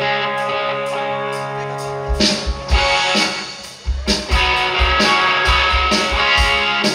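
Live rock band playing: an electric guitar holds a ringing chord, then about two seconds in the drums come in with strong kick-drum hits and the band plays on together.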